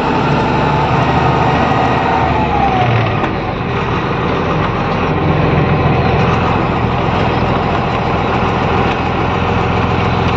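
Heavy goods truck's diesel engine running steadily at low speed, heard from inside the cab.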